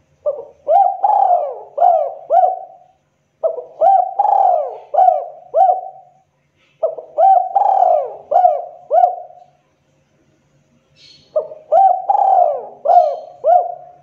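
Spotted dove (local tekukur) cooing in four loud phrases, each a short note followed by several longer swooping notes, with gaps of about a second between phrases. It is the sharp call of a dove in breeding condition.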